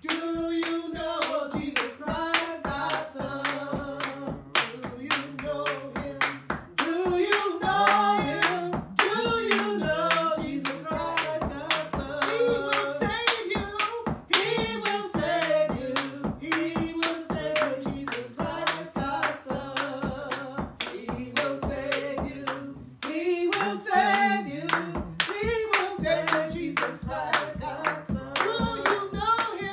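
Voices singing a gospel song, kept in time by steady hand clapping.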